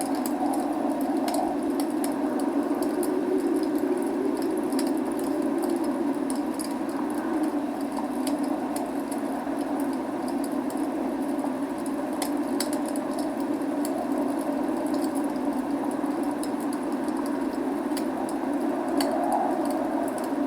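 Log fire crackling, with scattered sharp pops over a steady rush of rain.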